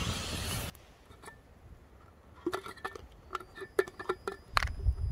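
Small clicks and light knocks of a Jetboil stove cooking system being taken apart, its burner, cover and stand pulled off the pot, in a quick irregular run from about halfway in. Wind rumbles on the microphone at the very start, cut off suddenly, and again near the end.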